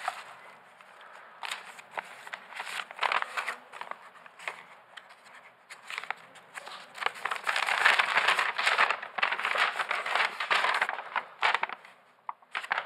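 Paper rustling and crinkling as folded sheets are unfolded and handled in leather work gloves: a run of quick, irregular crackles, densest from a little past halfway to near the end.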